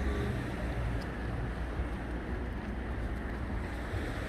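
Steady outdoor ambience: an even low rumble with a light hiss and no distinct event.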